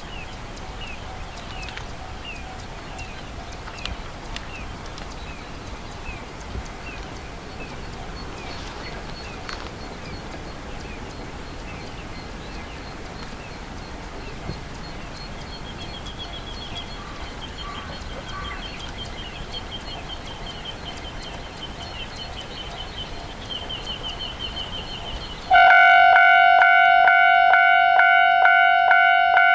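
Countryside ambience with birds: a bird repeating short chirps, later a rapid high trill. About 26 seconds in, a level-crossing warning bell starts up loudly, ringing in steady strokes about two a second.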